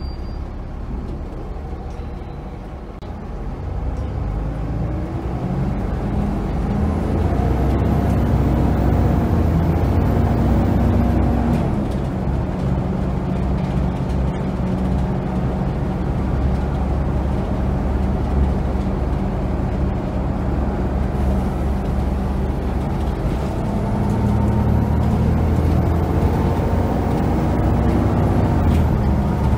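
Volvo B7TL double-decker bus's six-cylinder diesel engine heard from inside the saloon as the bus drives. The engine note builds about three seconds in as it pulls away, eases a little partway through, then strengthens again near the end.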